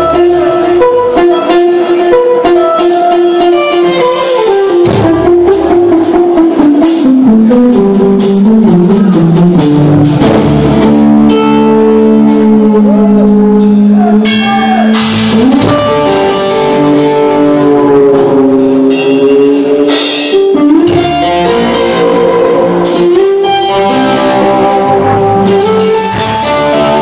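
Live instrumental rock: an electric guitar plays a lead line of long held, bending notes over a drum kit, with a slow downward slide about a third of the way in into a long held low note.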